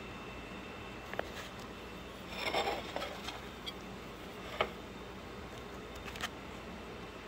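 Quiet room tone with a steady hiss, broken by a few sharp little clicks and a brief rustle about two and a half seconds in.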